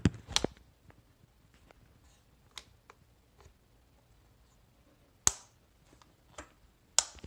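Sharp plastic clicks and taps from the keyboard being handled, its fold-out feet snapping: two loud clicks at the start, another about five seconds in and one near the end, with faint ticks between.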